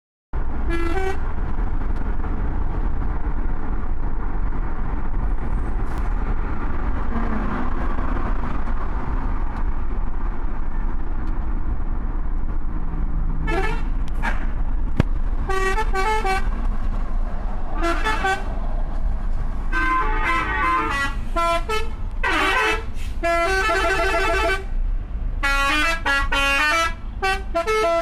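Telolet horns, multi-tone musical vehicle horns, sounding in a run of short blasts of several notes each from about halfway on, with a single short blast about a second in. Steady road and wind rumble runs underneath.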